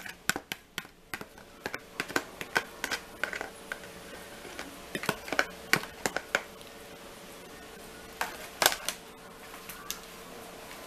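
Plastic bowl clicking and tapping against a plate as sauce-coated chicken wings are tipped and shaken out of it: a run of light, irregular taps that thins out after about six seconds, with a couple more just before nine seconds.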